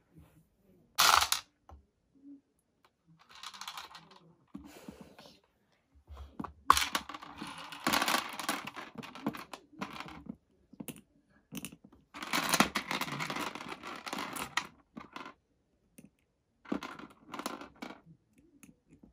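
Skittles clattering out of a plastic toy gumball machine as it is worked by hand, in several rattling bursts a few seconds long with short clicks between.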